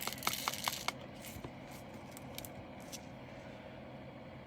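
Light clicks and rattles of plastic diamond-painting drills and their small bags being handled: a quick run of sharp clicks in the first second, then faint handling noise with a few scattered ticks.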